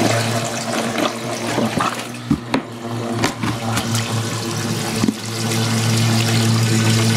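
Submersible water pump, wrapped in a filter bag, sucking water out of soaked stone wool grow medium: a steady motor hum under slurping and gurgling water. The hum fades for a few seconds while several sharp clicks and splashes sound, then comes back steady about five seconds in.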